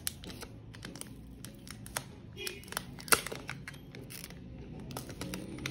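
Thin clear plastic protective film being peeled off a new smartphone, crinkling with scattered small crackles and one sharper snap about three seconds in.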